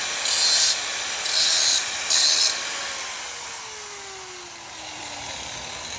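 Handheld electric power tool running, with four short bursts of grinding against thin sheet metal in the first two and a half seconds, then switched off, its whine falling in pitch as it winds down.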